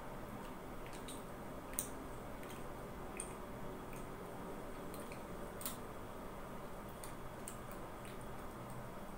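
Faint mouth sounds of a person eating an ice cream bar coated in chocolate and cookie bits: scattered small wet clicks and smacks at uneven intervals, the sharpest about two seconds in and just past the middle, over a steady low room hum.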